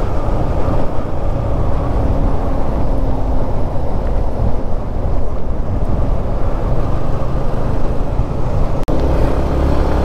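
Yamaha MT-15 motorcycle riding along, its single-cylinder engine running steadily under heavy wind rush on the rider's microphone. The sound drops out for an instant near the end.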